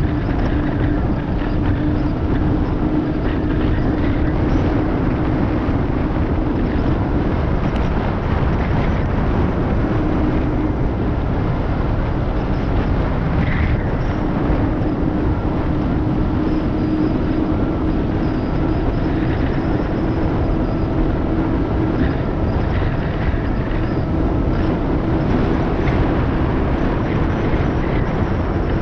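Wind rushing over the microphone of a mountain bike descending asphalt at about 45 km/h, with a steady hum from its knobby tyre rolling on the road that fades in and out.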